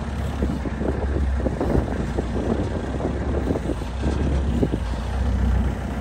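Bobcat skid-steer loader's engine running steadily, with rough clatter over the low hum as the loader works its bucket.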